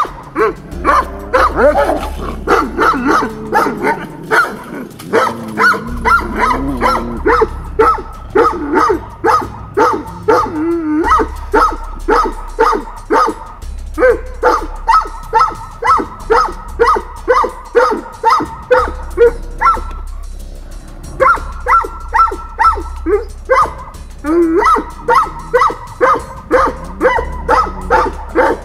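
Livestock guardian dogs in a rank fight: growling and snarling, then a long run of repeated barks at about two a second, pausing briefly about twenty seconds in. Background music plays underneath.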